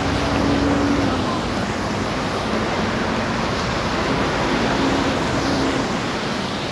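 Steady noise of city traffic on a rain-wet road: tyres hissing on the wet tarmac with the hum of passing vehicle engines.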